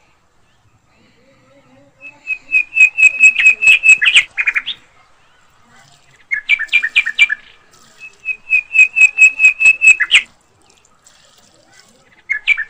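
A bird calling in runs of quick, even, high chirps at one pitch, about five a second, each run lasting one to two seconds, with quiet gaps between runs.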